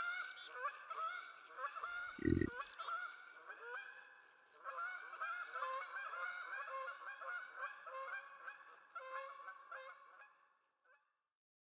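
A flock of large waterfowl honking, many calls overlapping, thinning out and fading away near the end. A short low thump about two seconds in.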